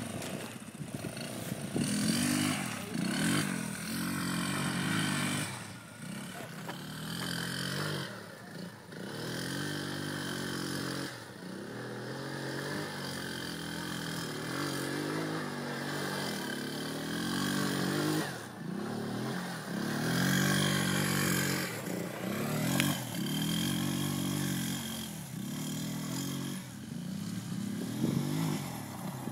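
Kazuma Falcon 150 quad's engine revving up and down again and again as it is ridden hard, the pitch rising and falling every second or two.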